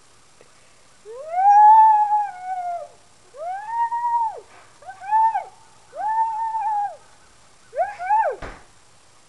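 A boy's high voice making five sliding calls, each rising and then falling in pitch, the first the longest and loudest. A sharp thump comes near the end.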